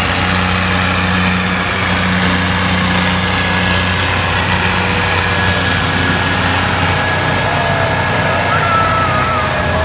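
Diesel engines of a John Deere 5050D and a Mahindra Arjun 605 tractor running hard under heavy load as the two pull against each other, chained back to back; a steady low drone. A wavering higher tone joins in near the end.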